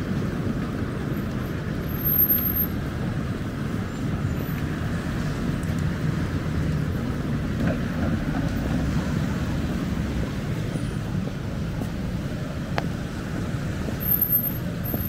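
Steady city street traffic: a continuous low rumble of passing cars, their engines and tyres blending into one.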